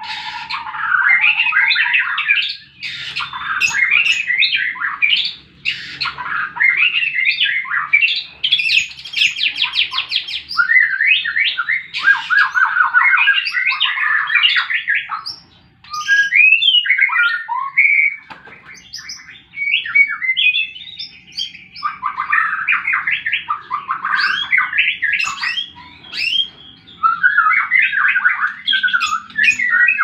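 White-rumped shama (murai batu) singing its loud fighting song: a rapid run of varied whistled phrases, chatters and fast trills in bursts, broken by a few short pauses.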